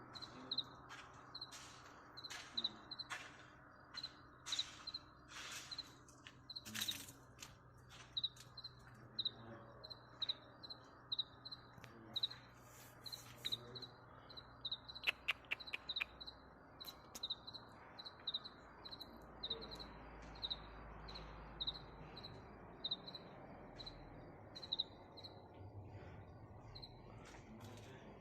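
A bird chirping one short high note over and over, evenly, about one and a half to two times a second, with scattered sharp clicks and rustles.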